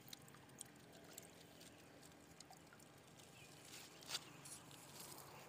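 Near silence, with faint water dribbling from a plastic scoop lifted out of a shallow ditch and a few light clicks of handling, the sharpest about four seconds in.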